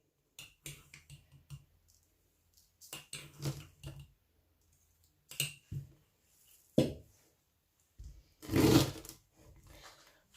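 Lemon quarters being pushed and squashed down into a jar: scattered knocks and clicks of fruit and hands against the jar, with a longer, louder crushing squish about eight and a half seconds in. The pressing closes the gaps between the pieces and forces out their juice, a step in preserving the lemons in salt.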